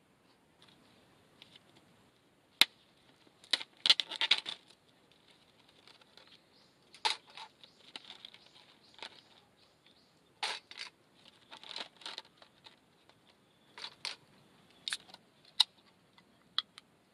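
Irregular clicks and clatter of hands handling camp gear: ice cubes rattling in a plastic tub, and near the end the pull-tab of a drinks can clicking open.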